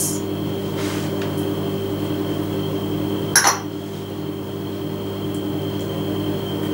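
A steady low hum with a faint high whine underneath, and about three and a half seconds in a single short, sharp clink of a small cup being set down on the table.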